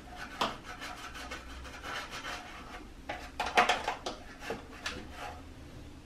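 A vinegar-wetted terry towel rubbing and wiping a humidifier tank's plastic lid: a run of irregular scrubbing strokes, with a louder patch about three and a half seconds in.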